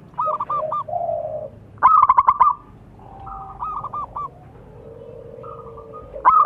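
Zebra dove (perkutut) cooing: repeated phrases of quick, rolling coo notes. The loudest come about two seconds in and again near the end, with lower-pitched coos overlapping them.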